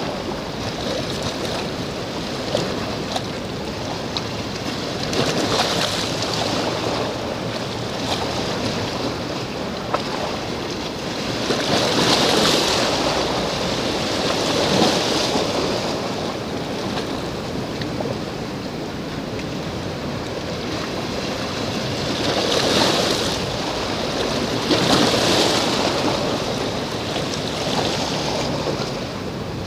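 Sea waves washing on the shore, a steady rushing that swells up every several seconds, with some wind on the microphone.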